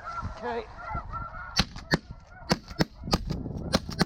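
Snow goose calls honking throughout, then about seven shotgun shots in quick succession from a second and a half in, as several hunters fire together at incoming snow geese.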